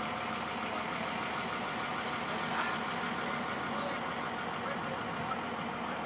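Volvo excavator's diesel engine running steadily.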